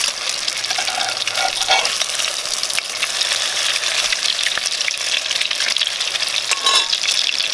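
Sucker fish cakes sizzling in hot oil in a cast-iron Dutch oven, a steady crackling hiss; one cake is turned over with a metal spatula.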